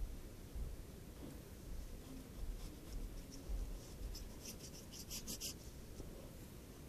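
Pencil scratching faintly on paper as a line is drawn, with a run of quicker scratching strokes about two-thirds of the way in.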